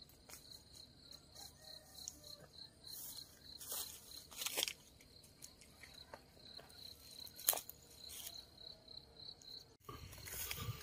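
Faint, steady cricket chirping, a high-pitched pulse about three times a second, with a few sharp knocks and rustles from handling. Near the end the background changes abruptly to a louder low rumble.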